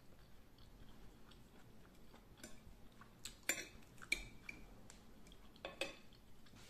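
A person chewing a mouthful of savoury puff-pastry tart, faint, with a few soft mouth clicks in the middle seconds.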